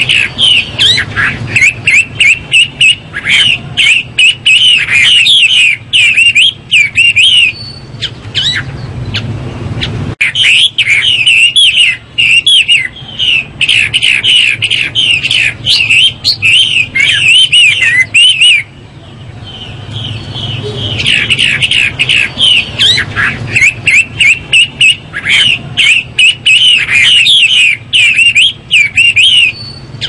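Chinese hwamei (Garrulax canorus) singing: three long bouts of rapid, varied whistled phrases, broken by two short pauses, over a faint steady low hum.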